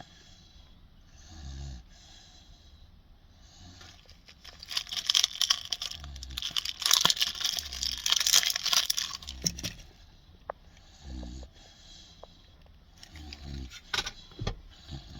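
Boerboel puppy snoring in slow, regular breaths. From about four to ten seconds in, a louder jangling, scraping rattle covers the snores.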